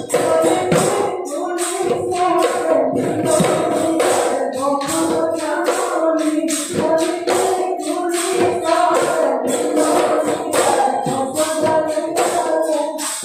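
Live Bihu music: dhol drums and small metal hand cymbals keeping a fast, even beat of about four strokes a second, with group singing over it.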